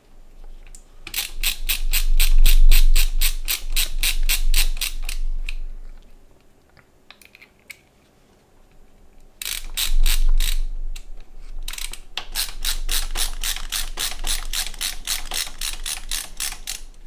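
Screwdriver ratcheting as it drives standard screws into a PC case's side panel: a fast, even clicking at about seven or eight clicks a second, in three runs with a pause after the first.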